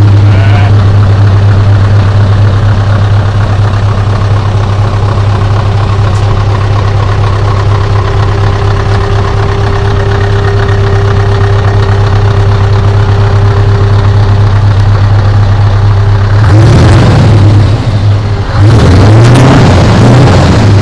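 Scania V8 truck diesel engine idling with a steady deep hum. It is revved twice near the end, the pitch rising and falling.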